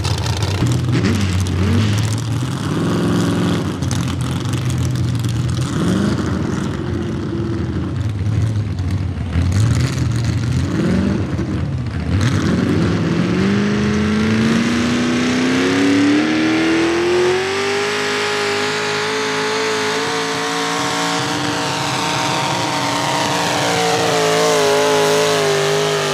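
Small-block V8 engine of a modified pulling tractor, revved in short blips up and down, then about twelve seconds in winding up steadily and holding at high revs.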